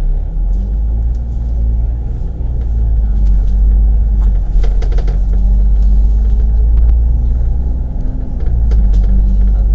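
Double-decker bus engine running under way, heard inside the bus: a steady low rumble whose pitch rises about half a second in, dips briefly near the end, then climbs again, with faint rattles from the bodywork.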